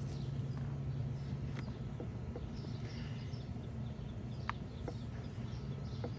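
Small scattered clicks and rustles of hands working in potting soil and potatoes, over a steady low hum, with faint bird chirps.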